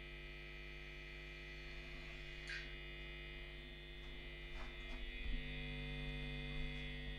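Faint pantograph up-and-down sound effect from the sound decoder of an Arnold N gauge DB class 181 electric locomotive model: a short hiss about two and a half seconds in and a few faint clicks about five seconds in, over a steady electrical hum.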